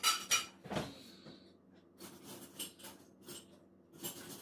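Kitchen handling noises from across a room: a sharp clatter at the start, a dull knock just under a second in, then a run of short scraping and rustling sounds, as of dishes and a plate being handled at the counter.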